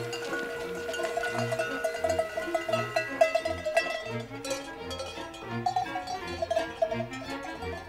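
Many bells on a flock of sheep clanking and jangling irregularly as the flock walks.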